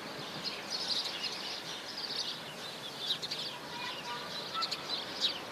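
Small birds chirping and twittering continuously in quick high chirps, with a few clearer, lower notes about four seconds in.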